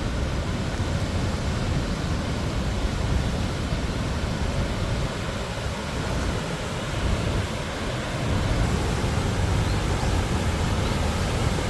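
Steady rushing of falling water from a waterfall, an even roar heaviest in the low end.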